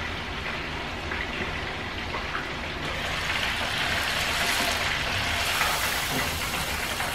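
Battered ling cod deep-frying in hot oil in an electric deep fryer: a steady sizzle that grows louder and brighter about three seconds in, as the lid comes off and the basket is raised out of the oil.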